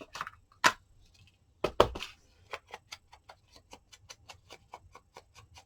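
Ink blending tool dabbed and worked over paper edges. A few sharp taps come first, then an even patter of short strokes, about four a second.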